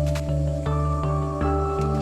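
Background music: calm, sustained notes changing in a steady pulse of about three notes a second over a held bass.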